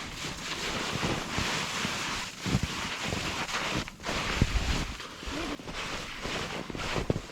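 Steady hiss of snow scraping under a hiker glissading down a steep snowy slope, with wind buffeting the microphone in low gusts and a few soft knocks.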